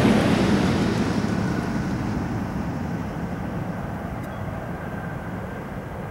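Airbus A320 jet airliner's engines at takeoff thrust, a broad rumble that fades steadily as the plane rolls away, rotates and lifts off. A faint steady whine sits over the rumble from about two seconds in.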